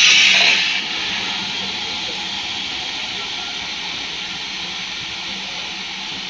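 Steam hissing from LMS Ivatt Class 2MT steam locomotive 46447, loud for about the first second and then easing to a quieter, steady hiss.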